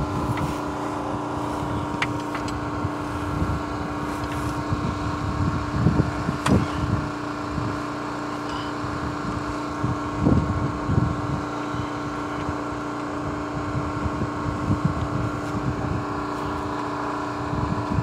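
A steady mechanical hum from a running motor, with wind gusting on the microphone and a few faint clicks.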